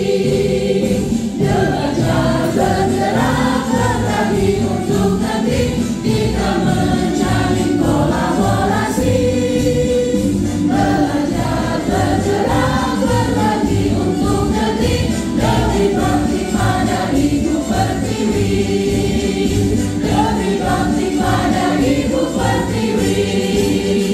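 A hall full of people singing a song together in unison, over instrumental accompaniment with a steady beat.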